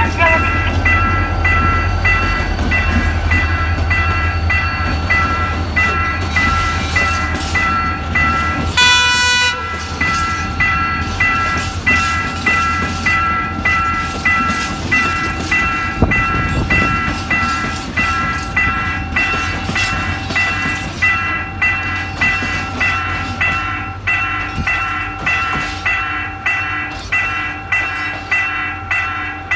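Railroad crossing warning bell ringing over and over, about one and a half dings a second, while a train rumbles past, the rumble fading in the second half. A short train horn blast sounds about nine seconds in.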